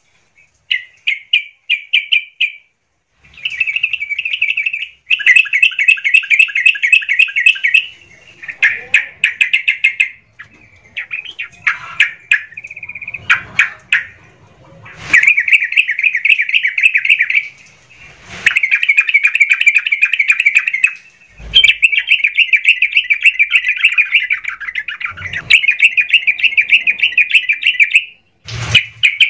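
Yellow-vented bulbul singing its excited 'gacor' song: bursts of rapid, bubbly chattering notes, each a couple of seconds long, with short breaks between.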